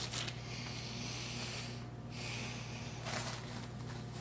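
Heavy breathing, a run of deep, hissing inhales and exhales through the nose and mouth between mouthfuls.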